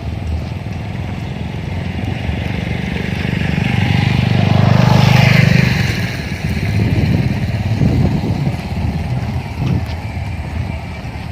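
A motor vehicle passing close by, growing louder to a peak about five seconds in and then fading, over a steady low rumble.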